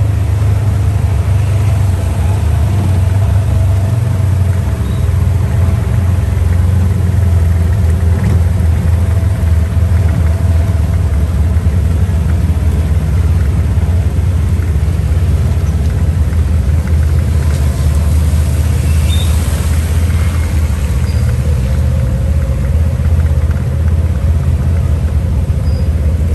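Off-road buggy driving along, its engine running with a steady low rumble. About eighteen seconds in, a brief hiss rises above it.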